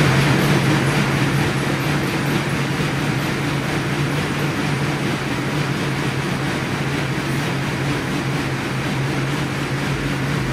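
Rogue Echo Bike air bike pedalled flat out: the fan spins fast, giving a loud, steady rush of air with a low hum underneath.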